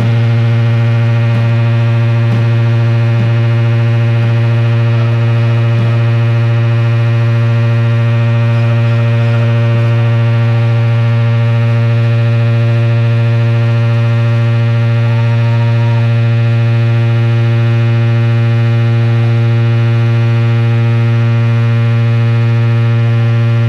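A loud, unchanging electric-guitar drone through the amplifiers: one low note held steady, with faint wavering feedback tones above it.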